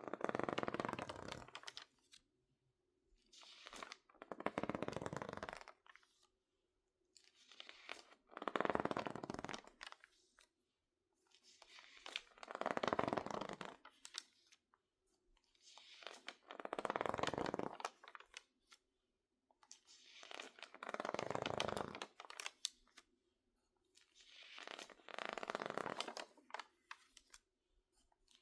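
Water-damaged magazine pages, crinkled from being misted and dried, crinkling under slow handling. Each crinkle lasts about two seconds, and they repeat roughly every four seconds, seven times.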